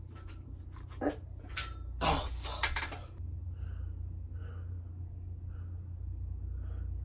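A man breathing hard, with loud, breathy exhales and panting, out of breath from a hard set of hanging ab work. About three seconds in this gives way to a steady low hum with softer puffs of breath about once a second.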